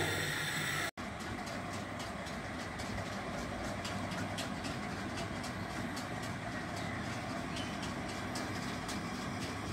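Chicken and potato curry simmering in an open pan: irregular small bubbling pops over a steady rushing background. The sound breaks off for an instant about a second in.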